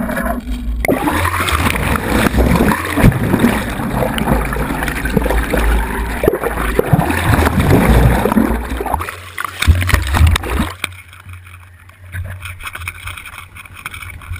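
Water rushing and gurgling over an underwater camera housing as it is churned through the sea, full of turbulent splashes. About eleven seconds in the rush cuts off as the camera comes out of the water, leaving a quieter low hum.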